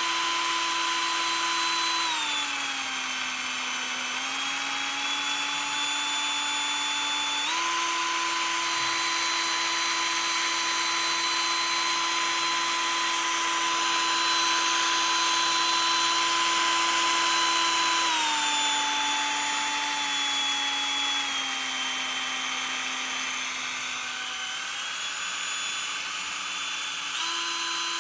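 Ingco cordless drill running free at its highest speed setting, a steady motor whine. The pitch dips about two seconds in, jumps back up a few seconds later, sags again after about eighteen seconds, and rises again near the end.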